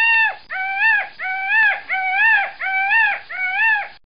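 Peacock calling: a long, held wailing call that breaks off just after the start, then a quick run of short calls, about two a second, each rising and then dropping in pitch.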